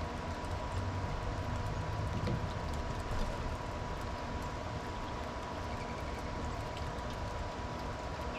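Steady outdoor background noise: a low rumble and hiss with a constant thin high hum and scattered faint ticks.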